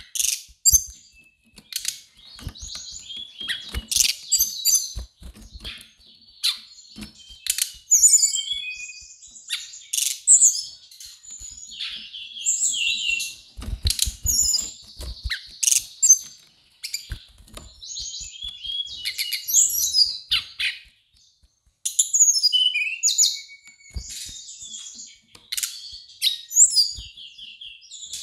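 Brown-chested jungle flycatcher singing: a rapid, varied run of high chirps, short trills and slurred whistles in phrases with short breaks, along with a few short knocks.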